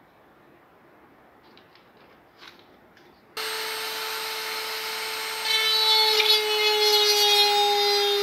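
Handheld rotary tool starts abruptly about a third of the way in and runs with a steady high whine. About two seconds later it gets louder as the bit grinds into the fiberglass cowl, its pitch sagging slightly under the load. Before it starts there are only a few faint taps.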